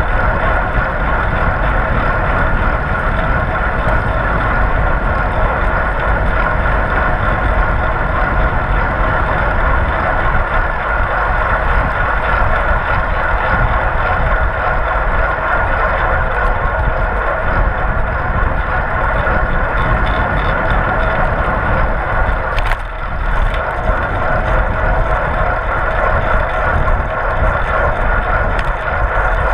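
Wind rushing over a GoPro action camera's microphone, with tyre and road noise, while riding a fixed-gear bicycle at race speed. The noise is loud and steady, dipping briefly with a single knock about 23 seconds in.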